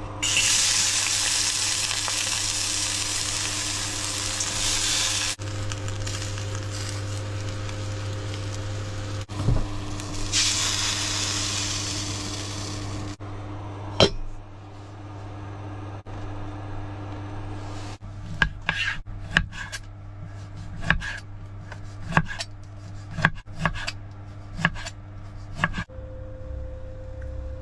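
Food sizzling loudly as it is stir-fried in hot oil in a pan, under a steady hum from a range hood fan. The sizzle comes in two spells, then dies down, and in the second half there is a run of sharp knocks, roughly two a second.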